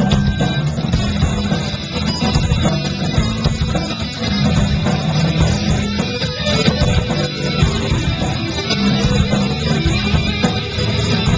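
Live rock band playing a bluesy song at a steady loud level: electric guitars, bass guitar and drums.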